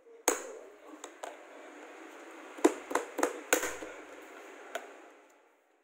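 A thin metal rod knocking on the rim of a plastic paint-bucket lid, about eight sharp, irregular taps, to break the lid's tear-strip seal so the bucket can be opened.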